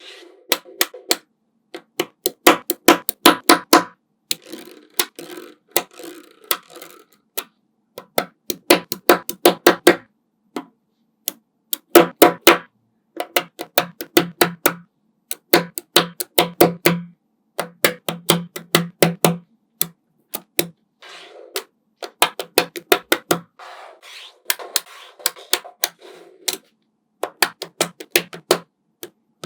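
Small neodymium magnetic balls clicking and snapping together in quick irregular runs of sharp clacks, with short pauses between clusters.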